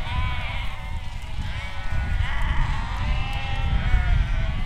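A flock of sheep on the move bleating, many overlapping calls at once, over a steady low rumble.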